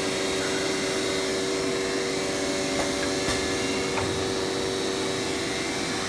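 PTP CNC router machinery running steadily: an even whine-and-rush of motors and air with a strong steady hum, and a few faint clicks in the middle.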